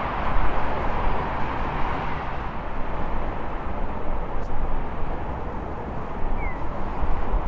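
Steady rushing engine noise of a distant Boeing 737 MAX 8 on approach, its CFM LEAP-1B jet engines at low power, growing a little louder near the end, mixed with a gusty low rumble of wind on the microphone.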